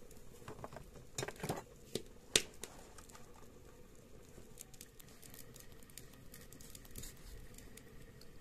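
Small clicks and snaps of green chillies being handled, their stems pulled off and the chillies dropped into a clay bowl, with a short cluster of clicks about a second in and one sharp click about two and a half seconds in.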